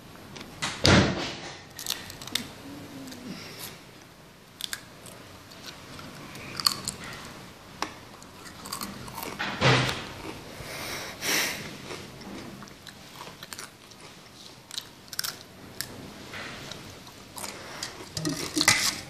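Mouth chewing and crunching Pringles-style stackable potato crisps, with irregular short crunches; the loudest bites come about a second in and twice around the middle.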